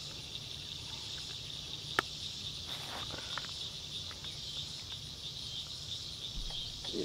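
Steady high chirring of crickets and other insects in a summer evening chorus, with one sharp click about two seconds in.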